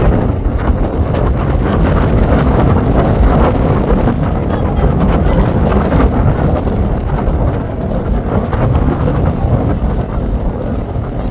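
Wind buffeting the microphone in a steady low rumble, over the drone of display aircraft engines.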